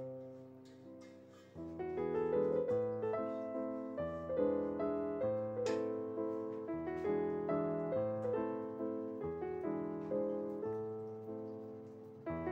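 Background piano music: a gentle melody of struck notes that fade, quieter at first and fuller from about a second and a half in.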